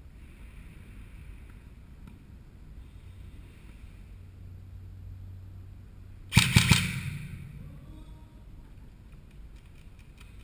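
Airsoft gun fired in a short burst of four or five rapid shots close by, about six seconds in, over a low steady rumble of wind and movement on the microphone.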